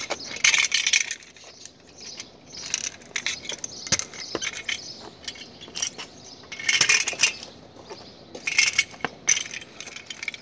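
Kick scooter's small hard wheels and deck rattling and scraping over rough pavement in irregular gritty bursts with sharp clicks, as it is ridden past.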